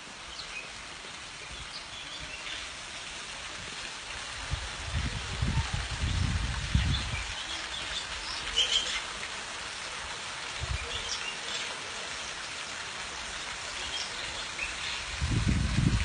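Water of a small waterfall splashing and pattering steadily down mossy rock into a pool, with small birds chirping now and then. A few low rumbles come in a few seconds in and again near the end.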